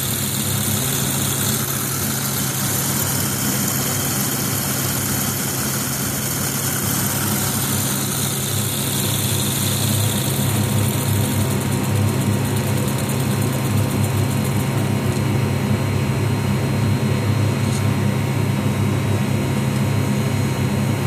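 Homemade brass model steam engine, fed through a hose, running steadily with a continuous mechanical running noise and hiss, a little louder from about halfway through.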